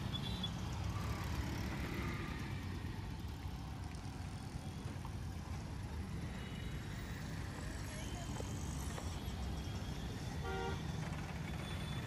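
Road traffic passing close by: auto-rickshaw and motorbike engines over a steady low rumble, with a short horn beep near the end.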